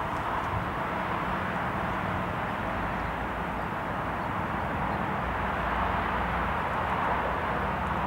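Steady outdoor rushing noise with no distinct events.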